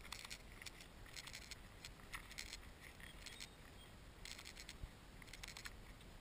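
Footsteps crunching on a dry pine-needle path: a soft crackle of clicks with each step, about one step a second.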